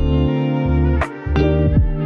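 Background music with sustained chords and low notes that slide down in pitch.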